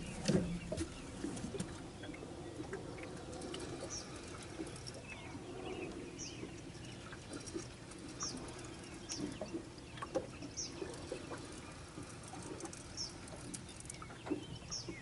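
A small bird calling with short, high chirps about every second, over a low steady background, with a few faint clicks.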